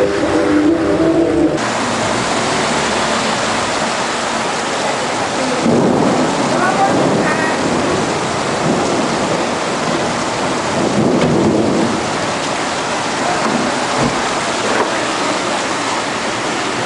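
Heavy rain pouring down, a dense steady hiss.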